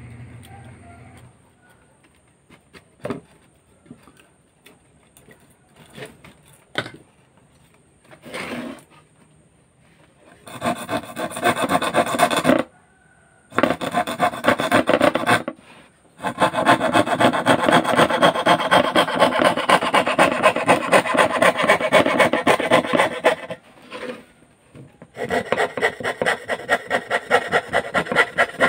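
A number 8 saw blade cutting 8 mm plywood in fast, even rasping strokes, in several spells with short pauses between them. A few separate knocks come first.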